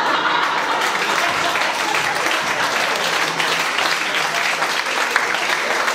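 Audience and performers applauding: many hands clapping in a dense, steady patter.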